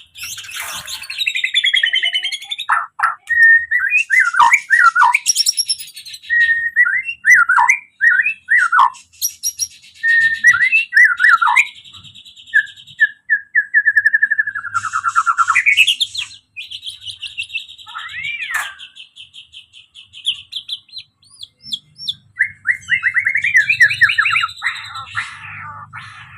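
White-rumped shama (murai batu) singing a long, varied song: clear whistled notes, rapid trills and chattering phrases that rise and fall in pitch, with short pauses between phrases.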